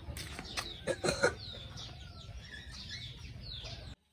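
Chickens clucking and small birds chirping, with a few short knocks in the first second and a half, the loudest about a second in. The sound cuts off abruptly near the end.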